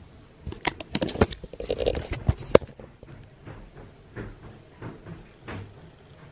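Handling noise from the camera being moved and repositioned: a quick run of clicks, knocks and rustling, ending in one sharp, loud click about two and a half seconds in, then a few lighter taps.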